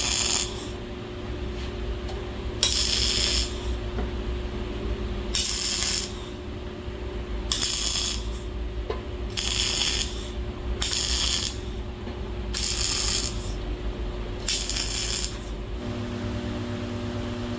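Eight short, hissy rasping scrapes of hard material at irregular intervals, over a steady low hum.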